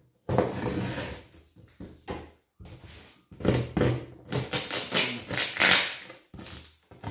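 Utility knife slitting the packing tape on a cardboard box, a series of short scratchy strokes of blade dragging through tape and cardboard.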